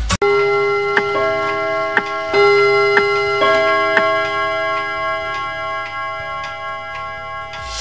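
Ticking-clock effect in an intro music bed, about one tick a second, over sustained bell-like tones.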